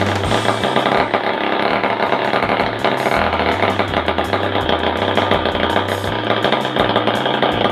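The car's 49cc engine running steadily at idle.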